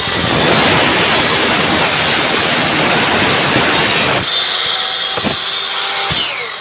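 Mitre saw's blade cutting a mitre through an aluminium tube: a loud harsh cutting noise for about four seconds. Then the blade spins free with a steady high whine, a couple of knocks, and it winds down in falling pitch near the end.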